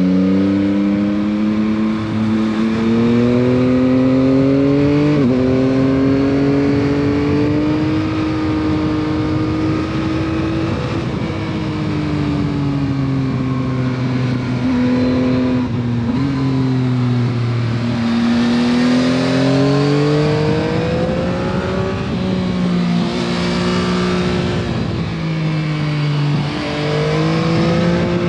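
Stock-exhaust 2021 Yamaha MT-09 SP's three-cylinder engine under way, its note climbing and falling with the throttle and stepping down at gear changes. Wind rush comes up twice in the second half.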